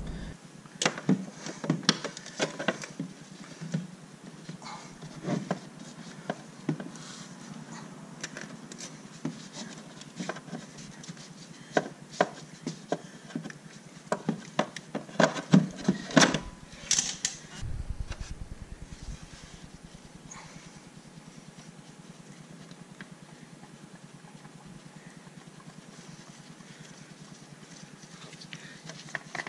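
Oil filter wrench clicking, knocking and scraping on a motorcycle's oil filter canister as the filter is worked loose. The clicks come in scattered runs and are loudest past the middle, then it goes quieter near the end.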